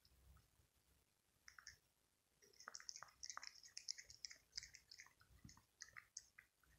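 A cat lapping milk from a shallow ceramic dish: faint wet clicks of the tongue, a couple at first, then a quick, steady run of laps from about two and a half seconds in.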